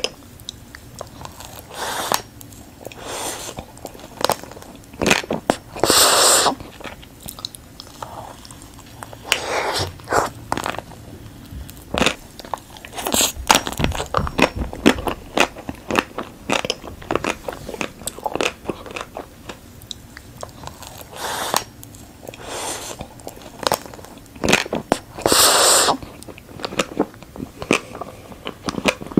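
Close-up eating sounds: bites crunching through the hard chocolate shell of ice cream bars, with chewing in between and crackly clicks throughout. A few bites stand out louder, about six seconds in, midway and near the end.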